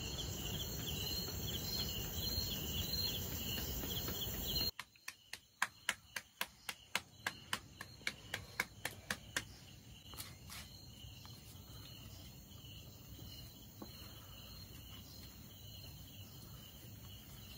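Crickets chirping in a steady pulse for the first few seconds. Then the sound drops, and hands slap roti dough between the palms in sharp pats, about three a second, tailing off after about five seconds while crickets chirp faintly behind.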